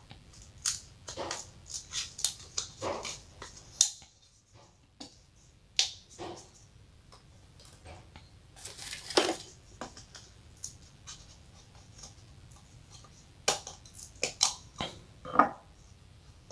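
Plastic diffuser dome of a 14-watt LED bulb being pried and twisted off its housing with a flat pry tool: scattered sharp clicks and cracks of plastic, a longer scrape about nine seconds in, and a quick cluster of clicks near the end.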